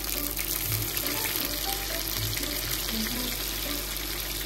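Food sizzling steadily as it fries on the hot plates of an electric hot sandwich maker.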